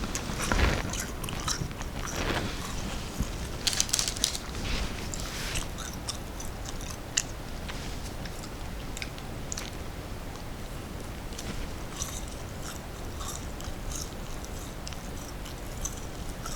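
A person biting into and chewing a crunchy snack close to the microphone: a few loud crunches in the first four seconds, then lighter crackling chews.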